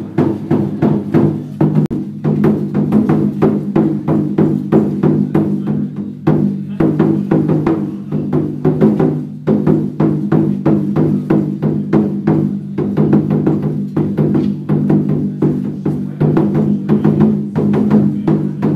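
Chinese lion dance percussion: a large drum beaten in rapid, steady strokes, several a second, over a steady low ringing.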